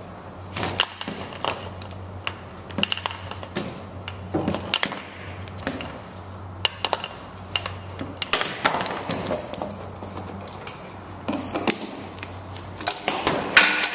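Exhaust-pipe cutter being worked on 1-inch ABS plastic pipe: irregular clicks, creaks and crunching as the tool bites into the plastic, with a loud crack near the end.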